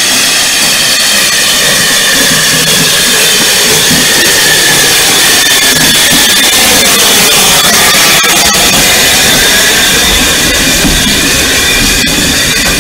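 A steam train running close by: a loud, steady rush of hiss and rolling noise, with wavering high-pitched squealing tones throughout and a few sharp clicks in the second half.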